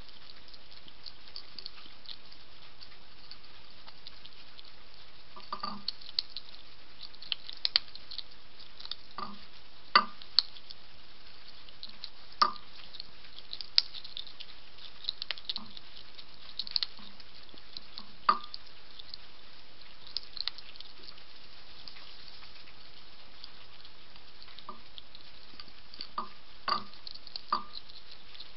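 A European hedgehog crunching dry food from a plate: irregular sharp crunches, sometimes singly and sometimes in quick clusters a few seconds apart, over a steady hiss.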